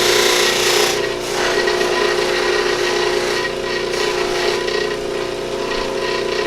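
Motor-driven buffing wheel running with a steady hum while a deer antler pen blank is pressed against it and polished; the hiss of the rubbing is loudest in the first second, then eases.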